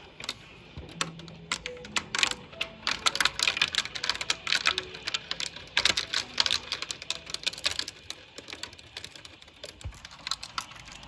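Sleet or snow pellets tapping irregularly on a window pane, as a dense patter of sharp ticks that picks up about two seconds in and thins out again near the end.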